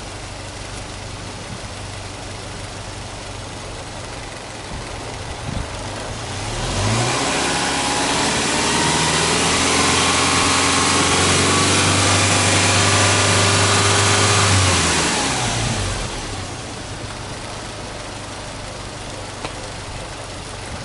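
Subaru Legacy B4 2.5GT's turbocharged EJ25 flat-four (boxer) engine idling, then revved in neutral: about a third of the way in the revs climb quickly and are held steady at a raised speed for roughly eight seconds, then drop back to idle.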